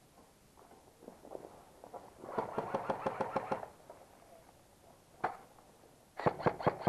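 Airsoft rifle fire: a rapid burst of sharp clacks, about ten a second for just over a second, beginning about two seconds in. A single shot follows, then a louder rapid burst near the end.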